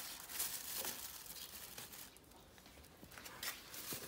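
Faint rustling and scraping of handling as strips of smoked meat are taken off wire hooks, with a few light clicks.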